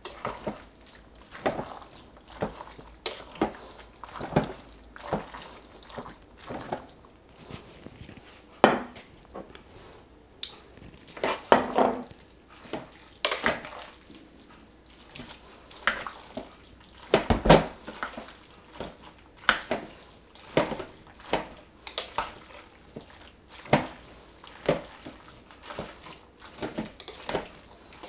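Metal tongs tossing sauced shredded pork in a stoneware slow-cooker crock, clacking against the crock and each other in irregular clicks, about one or two a second, with one louder knock about two-thirds of the way through.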